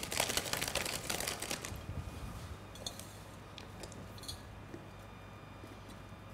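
Dry crackly rustling of crumbly oat topping being handled and scattered over a baking pan. It is dense for the first couple of seconds, then thins to a few light clicks.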